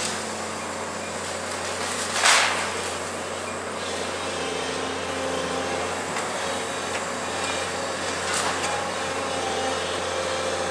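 Hyundai 180LC-7 tracked excavator's diesel engine running steadily under hydraulic load as the demolition grab works the rubble. A loud impact comes about two seconds in and a lighter one about eight seconds in.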